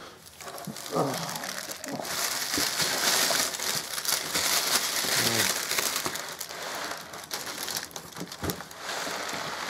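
Plastic bag around a flat-screen TV crinkling and rustling as hands grip its handles and pull the set up out of its cardboard box.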